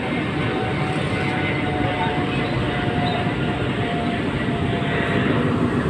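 Steady roar of busy road traffic, with a faint thin whine drifting through most of it.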